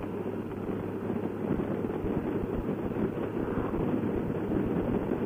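Honda motorcycle cruising at steady road speed: wind rushing over the helmet microphone and the engine running evenly underneath.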